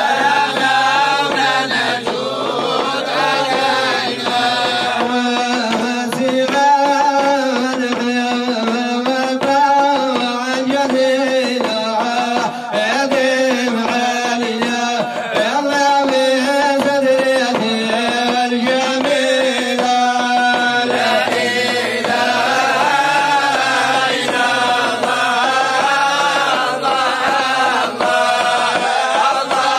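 Men's voices chanting a Sufi devotional hymn together, the lead voice sung into a microphone and amplified, in long held melodic phrases that rise and fall.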